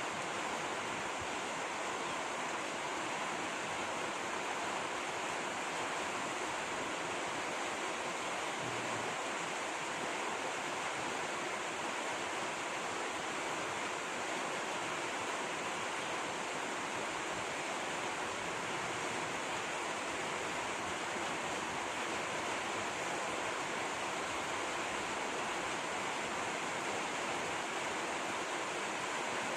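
Steady rush of flowing water, even and unbroken, with no separate events standing out.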